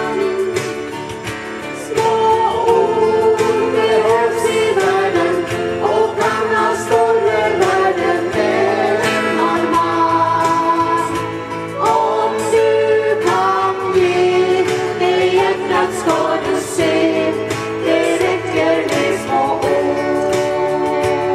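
Live song: a small group of women singing together to two acoustic guitars that strum steadily.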